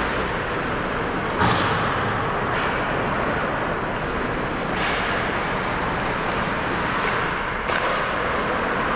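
Ice hockey game on a rink: a steady wash of skates on ice and rink echo, with a few sharp knocks from play, the loudest about a second and a half in.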